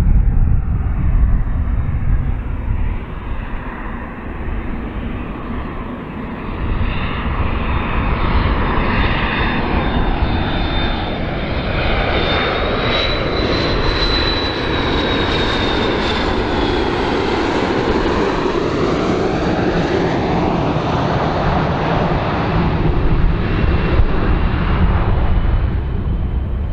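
McDonnell Douglas MD-82 airliner's two rear-mounted Pratt & Whitney JT8D turbofans on landing approach as it flies past close by. A steady jet engine noise carries a high whine that rises as the aircraft nears, peaks about halfway through, then falls away as it passes.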